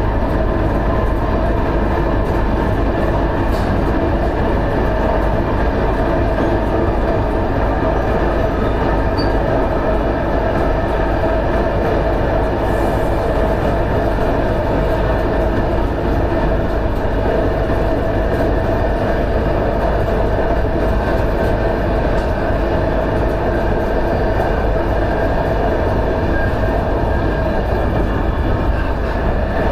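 Doğu Ekspresi passenger train running along the track, heard from on board: a steady, even rumble of wheels on rail with a constant hum of tones over it.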